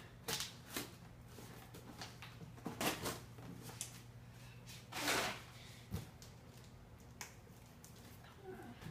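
A cardboard mystery box being opened and its packaging handled: scattered short rustles and scrapes, a longer scrape about five seconds in, and a couple of light knocks.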